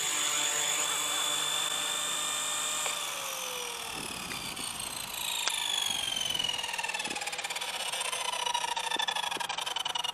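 Microheli S300C micro RC helicopter with a 2627 brushless motor and three-blade rotor head, its motor and rotor whining steadily at first. After about three seconds the pitch falls away and keeps dropping as it spools down after landing.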